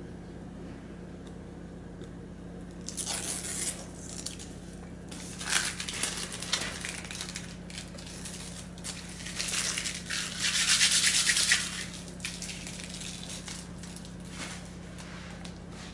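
Thin plastic crinkling, rubbing and being peeled off by hand, in several bursts; the longest and loudest comes about ten seconds in, with a fine rapid tearing texture. A steady low hum runs underneath.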